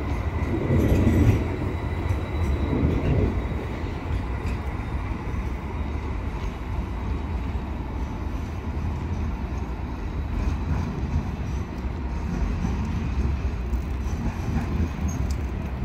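A rail vehicle running steadily: a low rumble with a faint, steady high whine over it.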